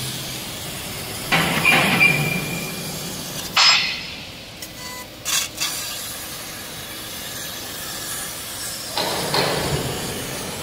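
Fiber laser tube cutting machine at work: a steady mechanical hiss broken by several louder metallic clanks and hissing bursts.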